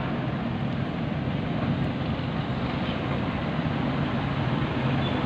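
Steady rumble of vehicle traffic, an even noise with a low hum and no distinct events.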